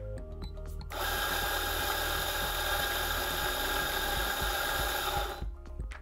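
Fiorenzato F64XGI espresso grinder's motor and 64 mm flat burrs grinding beans, starting about a second in and cutting off suddenly after about four and a half seconds as it doses a double shot by weight into the portafilter.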